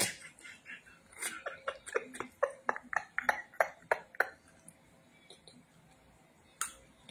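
A woman's stifled laughter behind her hand: a quick run of short, breathy giggles, about four or five a second, that dies away about four seconds in. A single short click comes near the end.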